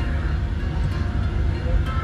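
Steady low rumble of a DL17 diesel locomotive running as it moves the train, heard from inside the cab of the coupled railcar, with background music over it.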